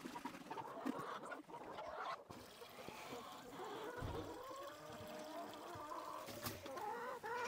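Chickens clucking quietly, several calls overlapping, growing busier in the second half.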